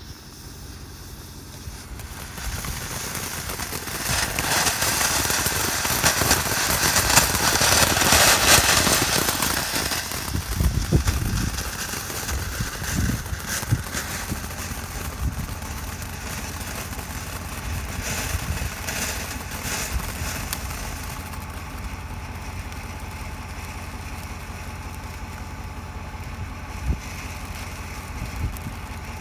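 Wiseguy All-in-One Eruption firework fountain spraying sparks: a rushing hiss that builds over the first couple of seconds and is loudest for several seconds, then settles into a steady hiss with crackling and scattered pops.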